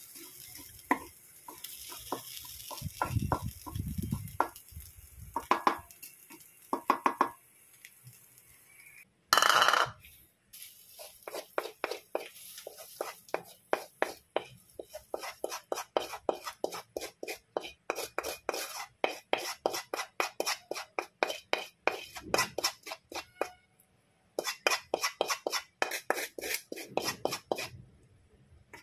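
Wooden spatula stirring in, then scraping and knocking against, a metal frying pan as cooked sardine omelette is scraped out into a bowl. A loud clatter comes about nine seconds in. After it comes a long run of quick scrapes, about three or four a second, that stops near the end.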